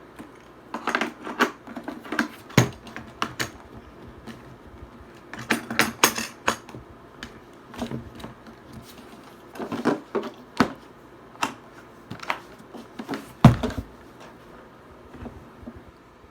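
Irregular clicks and knocks of a phone rig stabilizer being handled, coming in clusters every second or two. The loudest, heaviest knock comes a little before the end.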